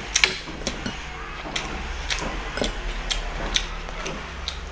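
Close-miked eating sounds: sharp crackles and clicks of chewing and of fingers tearing crispy fried meat, with a loud double crack about a quarter second in. A low steady hum sits underneath.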